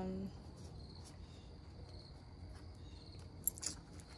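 A cricket chirping in a steady, high, pulsing trill, faint in the background. A sharp click about three and a half seconds in, with a couple of softer clicks just after.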